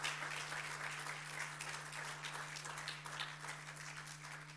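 Audience applauding, the clapping thinning out and fading toward the end, over a low steady hum.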